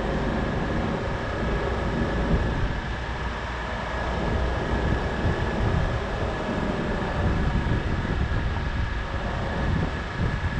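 Wind buffeting the microphone over a steady low rumble, with a faint steady high whine.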